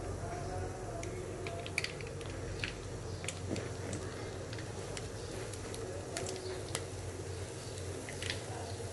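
Black urad dal and rice batter frying in hot oil on a low flame, a faint sizzle with scattered small, sharp pops and crackles.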